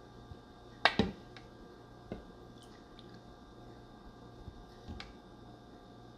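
A spoon knocking against a bowl as a milky gelatin mixture is spooned over gelatin cubes. Two sharp knocks come close together about a second in and are the loudest. Single lighter knocks follow about two seconds and five seconds in.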